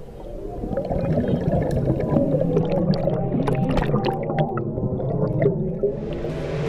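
Muffled underwater sound: water gurgling and bubbling with scattered small clicks over a low hum, swelling up over the first second or so.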